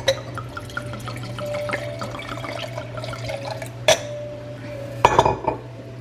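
White wine poured from a bottle into a stemmed wine glass, splashing and gurgling with a faint tone that rises slightly as the glass fills. A sharp clink comes about four seconds in, and a louder knock about a second later.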